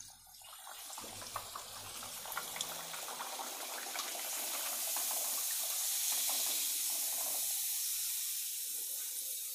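A puri deep-frying in hot refined oil in a steel kadai: a steady sizzle with fine crackling. It builds over the first few seconds after the dough goes in and stays loud while the puri puffs up.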